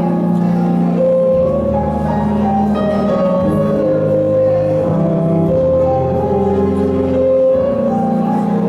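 Instrumental dance music playing: a melody of held notes over sustained bass notes.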